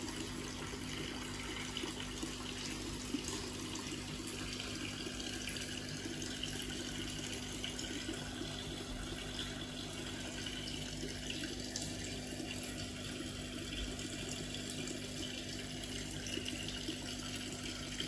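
Water running and splashing steadily into a koi fry tank, with a steady low hum underneath.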